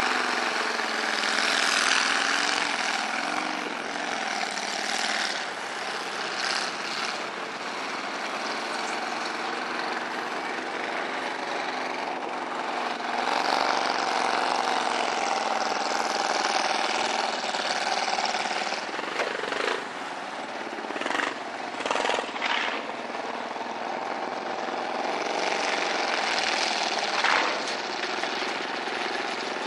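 Lifted 2½-ton Chevy mud truck churning through a water-filled mud pit: its engine runs loud and steady, its pitch rising and falling with the throttle, over the wash and splash of muddy water thrown by the tires. A few short surges come a little past two-thirds of the way through.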